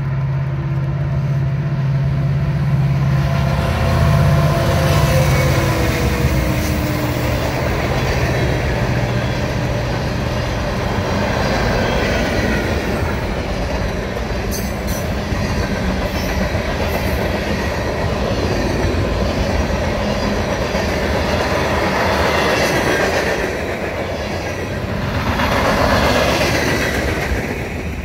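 Union Pacific freight train passing close by. The diesel locomotives' engine drone is strong for the first few seconds, then the freight cars roll past with a continuous rumble and clatter of steel wheels on the rails.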